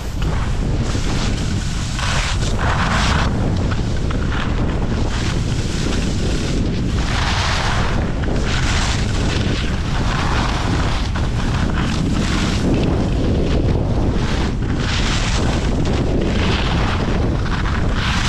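Wind buffeting the microphone of a pole-mounted camera during a downhill ski run, a steady low rumble. Surges of hiss every second or two as the skis carve turns on packed snow.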